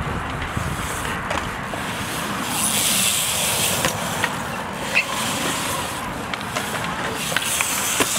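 BMX bike tyres rolling through a concrete skatepark bowl: a steady rushing noise that swells around the middle, with a few sharp clicks and knocks from the bikes. Wind rumbles on the microphone.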